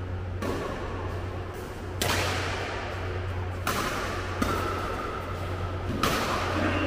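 Badminton rackets striking a shuttlecock in a rally: four sharp pops about a second and a half to two seconds apart, each echoing briefly, over a steady low hum.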